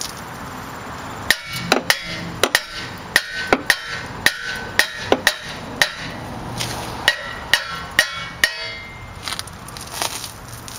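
Hammer blows on a seized rear brake rotor of a 2005 VW Touareg, struck hard to break it free of the hub. The blows come in a quick, uneven run of sharp metallic strikes, about two a second, each ringing briefly. They stop about three quarters of the way in, and a few lighter knocks follow near the end.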